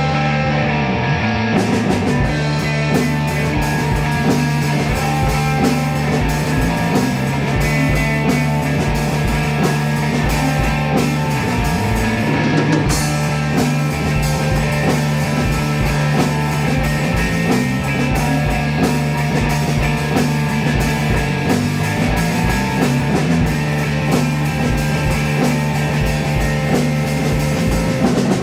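Psychedelic rock jam played on drum kit and guitar, with a steady driving beat and sustained low notes, running continuously at an even, loud level.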